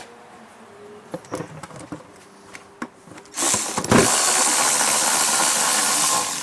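A handheld power tool spinning for about three seconds, starting around three and a half seconds in, as it runs out a 10 mm fastener on a lawn mower carburetor. Light clicks of tool handling come before it.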